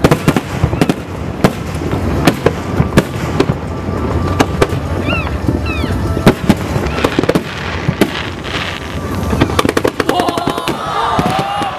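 Aerial fireworks shells bursting in a continuous barrage of sharp bangs and crackles over a constant low rumble, with a dense run of rapid cracks about nine seconds in.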